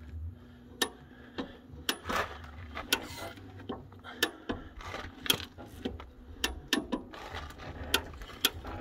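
A series of sharp clicks and knocks, about two a second and unevenly spaced, over a low steady rumble.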